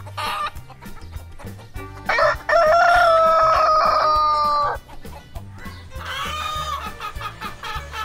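A rooster crowing: one loud, long crow held for about two and a half seconds, starting about two seconds in, then a quieter call a second later. Background music with a steady beat plays underneath.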